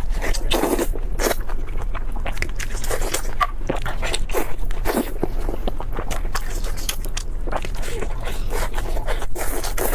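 Close-miked eating: a quick, irregular run of crunchy bites and chewing.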